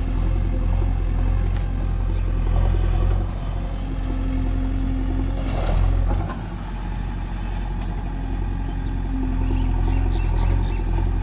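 JCB 3DX backhoe loader's diesel engine running under working load as the backhoe digs and swings, with a brief rush of loose soil tipped into a tractor trolley about six seconds in.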